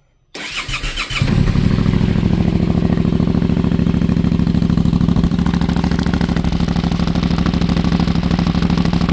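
2025 Yamaha Tenere 700's parallel-twin engine cranked by the starter and catching after about a second, then idling steadily through a newly fitted Dominator high-mount slip-on exhaust.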